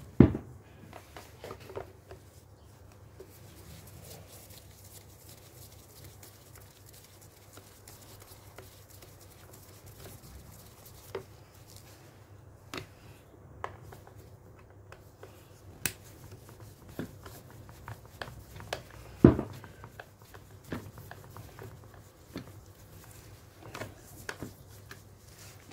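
Scattered clicks and knocks of chainsaw parts and hand tools being handled during a teardown, with two louder knocks, one right at the start and one about three quarters of the way through.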